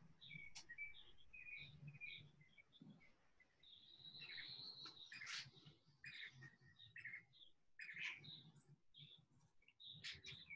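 Faint bird chirps: short, high notes scattered throughout, with one longer held note about four seconds in, over a low room hum.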